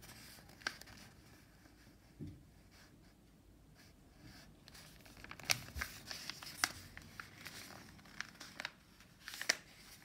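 A sheet of white paper rustling and crinkling as it is lifted, folded over and pressed flat by hand, with a few sharp crackles, the loudest in the second half.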